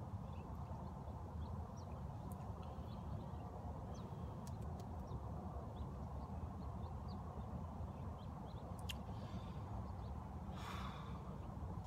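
Scattered short chirps of small birds over a steady low outdoor rumble, with one breathy exhale near the end.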